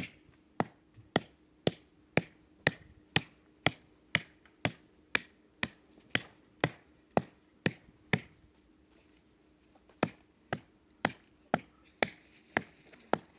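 Sharp knocks at an even pace, about two a second, like strokes chopping on a board. They stop for about two seconds a little past the middle, then start again at the same pace.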